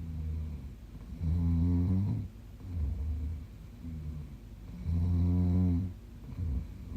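A woman snoring in her sleep: low, pitched snores about a second long, the loudest about a second in and again near five seconds, with softer, shorter snores between them.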